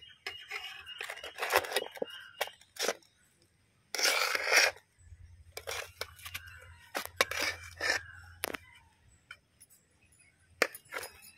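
Perforated steel ladle scooping cooked white rice in an aluminium pot: scattered scrapes, clicks and knocks of metal on metal, with a louder rustling, crunchy burst about four seconds in.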